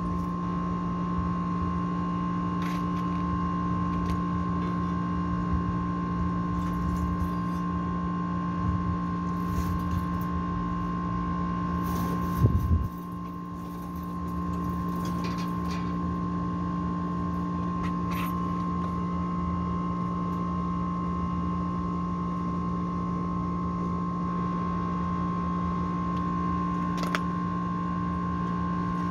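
Steady electric machine hum with fixed tones and a low rumble, with a few light metallic knocks and clinks. About twelve seconds in there is a short louder clatter, after which the low rumble drops away for a second or two before returning.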